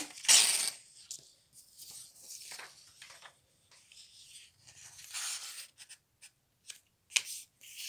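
A sheet of paper being handled and folded by hand on a wooden table: short rustles, slides and creasing scrapes, the loudest right at the start, with a sharp tap near the end.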